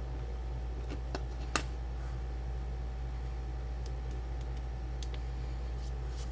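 Scattered light clicks and taps of a small black plastic radio case being handled and turned over, the sharpest about one and a half seconds in, over a steady low hum.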